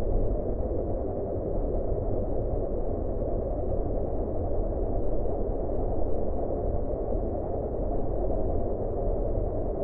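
Wind howling: a steady, low rushing noise that swells and eases slightly without stopping.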